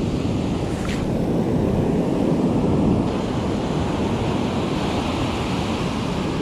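Ocean surf breaking and washing up the beach, a steady rushing noise, with wind on the microphone.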